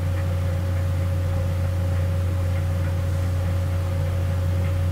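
Egg-battered stuffed jalapeño frying in hot oil in a wok: a faint even sizzle with a few small ticks, under a steady low hum.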